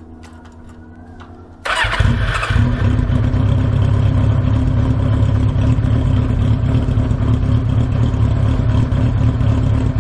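Yamaha XJ600N's air-cooled inline-four engine starting through a Delkevic stainless-steel aftermarket exhaust with its baffle tube fitted: it catches suddenly a little under two seconds in, with a short louder burst, then settles into a steady idle that reads about 81.5 dB on a sound-level meter.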